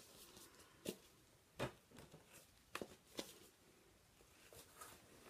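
Mostly quiet room with a handful of light, sharp taps and clicks from handling a notebook and a paper letter, about four of them in the first three and a half seconds.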